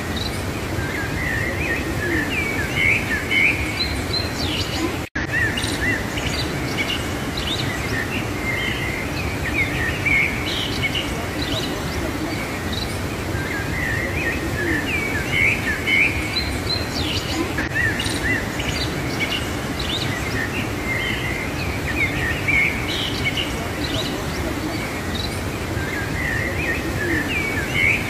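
Steady rush of the Athabasca River's whitewater through a narrow rock canyon, with small birds chirping again and again over it. The sound cuts out completely for an instant about five seconds in.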